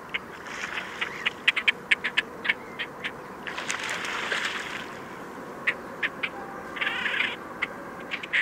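Water splashing as two great crested grebes fight, wings and bodies churning the surface, loudest about halfway through with a shorter splash near the end. Around it runs a loose string of short, sharp clicking calls, several a second.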